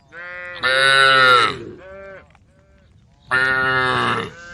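Cattle mooing: two loud, drawn-out calls about two and a half seconds apart, each sagging in pitch at its end, with shorter, softer moos just before and after each one.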